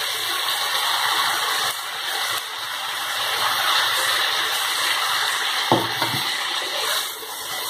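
Steady hissing sizzle of spice paste frying in oil as grated raw papaya is tipped into the pan. Near the end a wooden spatula knocks and scrapes in the pan twice.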